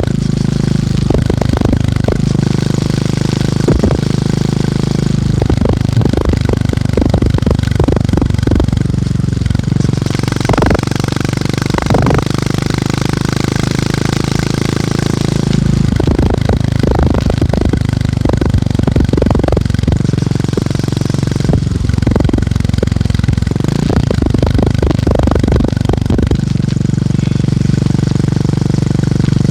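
Motorcycle engine thumping and its exhaust running steadily under way, the engine note shifting a few times as the speed changes.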